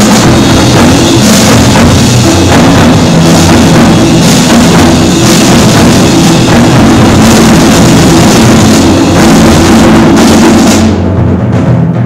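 Percussion ensemble playing loudly: timpani and other drums struck in a dense, driving rhythm under a bright high wash of percussion. About eleven seconds in the high sounds cut off and the timpani carry on.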